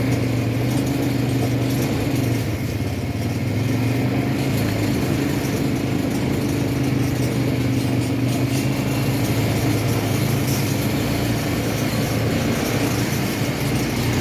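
ATV engine running steadily at a constant pitch, holding a fairly even speed.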